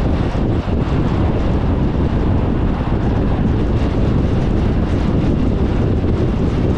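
Steady rush of tyre and wind noise from a car driving at road speed, with wind buffeting the microphone.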